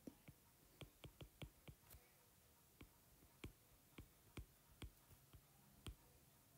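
Faint, irregular taps and clicks of a stylus tip on a tablet's glass screen while handwriting, about twenty in all, some in quick runs of two or three.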